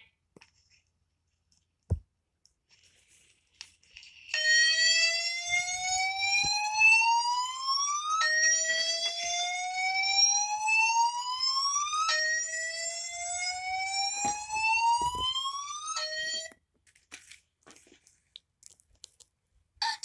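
Gentex GXS fire alarm speaker sounding a slow-whoop evacuation tone: three rising sweeps of about four seconds each, starting about four seconds in. A fourth sweep is cut off suddenly after half a second.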